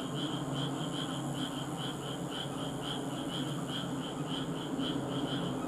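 A cricket chirping in an even, rapid rhythm of about four pulses a second, over a steady low hum.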